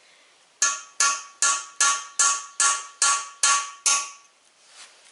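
A hammer strikes a steel chisel held against a freeze plug in an engine block: about nine quick, evenly spaced blows with a ringing metallic clang, starting about half a second in and stopping near four seconds. The chisel is being driven against the plug's edge to knock it loose for removal.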